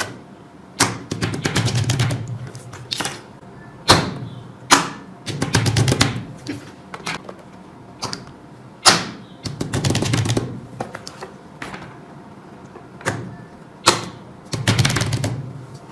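Rapid runs of sharp clicks, typical of a fidget toy being clicked or popped. A single louder click comes before each run, and the pattern repeats every few seconds, with music underneath.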